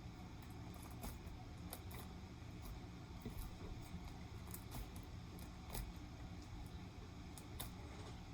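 Slime being kneaded and worked by hand after more activator is added, giving faint scattered clicks and squishes over a low background hum.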